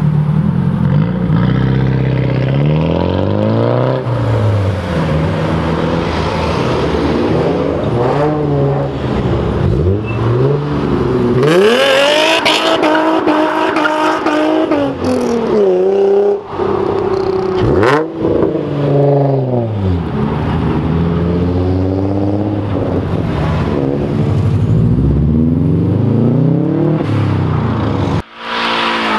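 Modified sports cars accelerating away one after another, each engine revving up with rising pitch and dropping at the gear changes. Around the middle one car holds high revs for a few seconds with a harsher hiss over the engine note.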